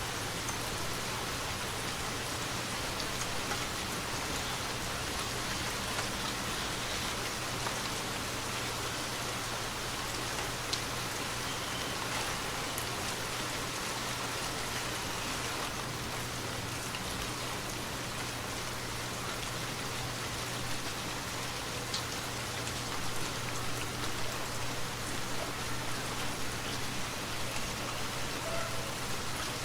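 Steady rain falling, with the patter of drops striking a surface and now and then a single drop ticking a little louder.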